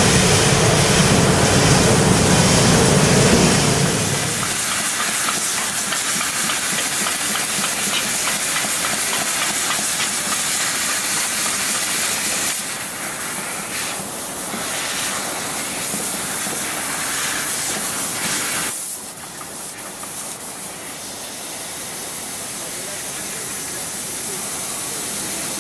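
CNC laser cutter slicing thin sheet steel: a steady hiss from the gas jet at the cutting head, with a lower machine rumble under it for the first few seconds. The hiss changes abruptly twice, about halfway through and again later.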